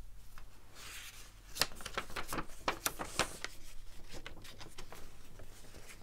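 A folded sheet of printer paper rustling and crackling as it is handled and opened out. Sharp crinkles come thickest between about one and three and a half seconds in.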